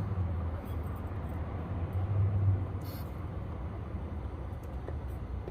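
Steady low rumble of a vehicle engine idling, with a faint haze of road traffic.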